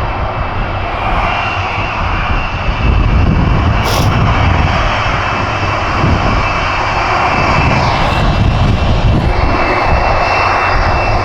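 Boeing 747-400 freighter's four jet engines running close by: a steady roar with a strong low rumble and a thin, high whine held over it, growing a little louder about three seconds in.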